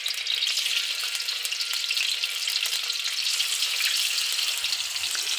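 Cubes of tofu sizzling and crackling in hot oil in a wok as more pieces are dropped in, a steady, dense frying hiss.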